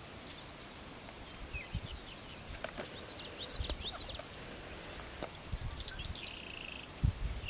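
Wild birds chirping and whistling in short calls, with a brief trill about six seconds in, over steady outdoor background noise. Two short stretches of high hiss come around the middle, and a dull low bump is the loudest sound near the end.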